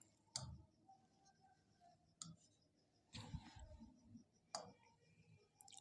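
Near silence broken by a handful of faint clicks and taps, spaced about a second apart.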